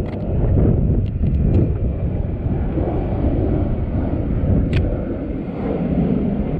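Wind buffeting the microphone, a loud steady low rumble, with a few short sharp clicks in the first second and a half and one more nearly five seconds in.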